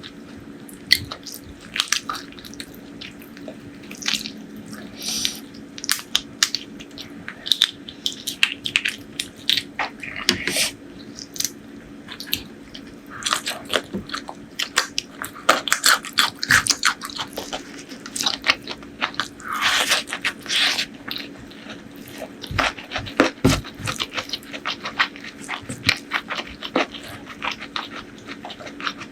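Close-miked eating sounds: wet chewing and mouth clicks with crunchy bites, in a quick irregular patter, over a faint steady hum.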